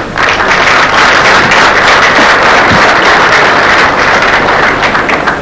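Large crowd applauding: dense, steady clapping that starts at once and eases a little near the end.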